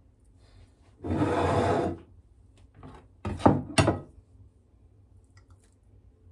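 Tableware being handled: a scraping rasp lasting about a second, then a few sharp clinks about three seconds in, as a metal fork is set down on a ceramic plate beside a glass dish.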